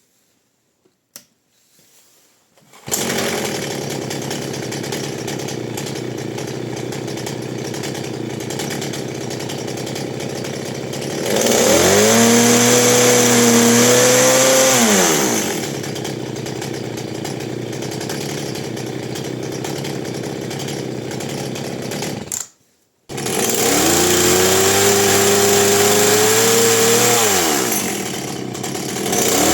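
Zenoah G3500EZ two-stroke chainsaw engine starting up about three seconds in and idling steadily. It is revved up twice for a few seconds each time and drops back to idle, with a brief cut-out just past twenty seconds, as it is run to check that it works.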